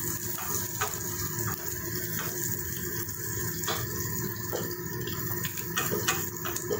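Chopped onion frying in oil in a pan over a low flame: a steady sizzle, with irregular clicks of stirring in the pan.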